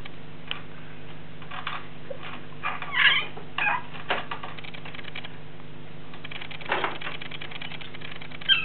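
Baby squeaking: a couple of short, high, wavering squeals about three seconds in, with a smaller one a moment later. Scattered light clicking and a steady low hum sit underneath.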